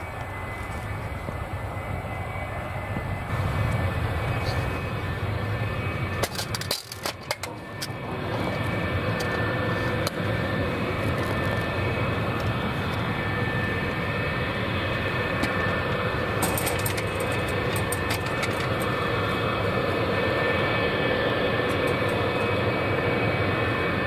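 F-4EJ Phantom jet engines (twin J79 turbojets) running at low taxi power: a steady jet whine with a thin high tone. About seven seconds in the sound briefly drops out with a few clicks, then resumes slightly louder.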